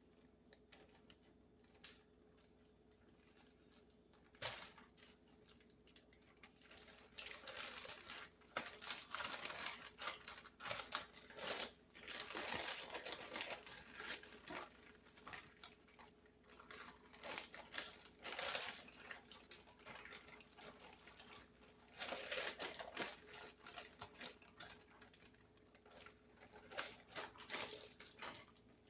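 Sour cream marinade being mixed by hand: irregular clicking and rustling in uneven spells, starting about four seconds in.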